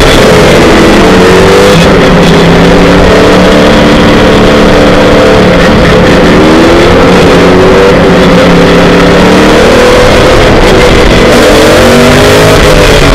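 Formula Le Mans prototype's racing engine heard from the cockpit, loud and at full throttle, its pitch climbing through the revs and dropping at each gear change several times over, with heavy wind and road rush on the in-car microphone.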